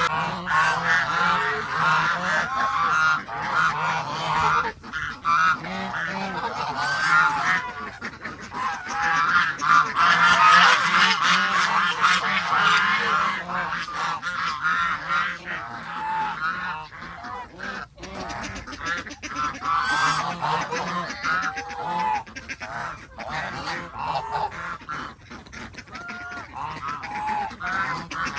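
A flock of Chinese geese honking continuously, many short overlapping calls at once, busiest in the middle.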